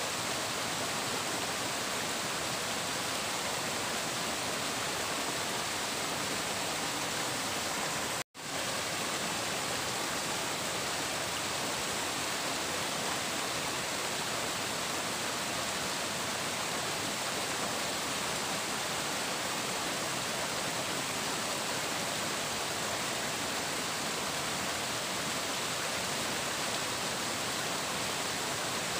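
Steady rushing and splashing of flowing water, even and unbroken except for a split-second cut to silence about eight seconds in.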